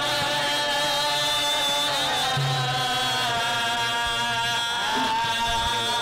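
Traditional Gurung folk song in thade bhaka style, sung in long held notes that waver and slide between pitches.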